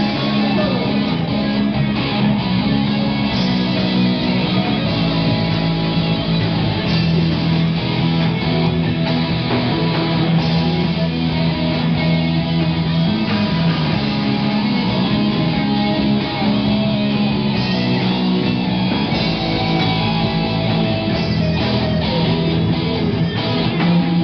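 Live rock band playing loudly: electric guitars over drums.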